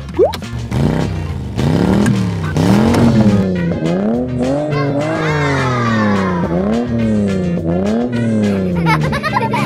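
A police siren rising and falling in pitch about once a second over background music, after a quick rising whistle right at the start.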